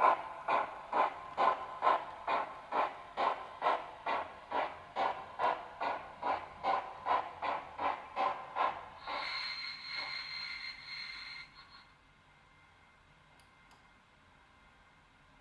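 Sound decoder of a Liliput ÖBB class 52 model steam locomotive playing steam chuffs about twice a second, which slow and fade as the engine comes to a stand. About nine seconds in, a hiss with a steady high whistling tone follows for a couple of seconds, then it goes quiet.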